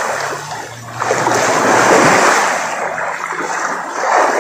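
Loud, continuous splashing and churning of river water as several people swim and kick through it, with a brief lull just before one second in.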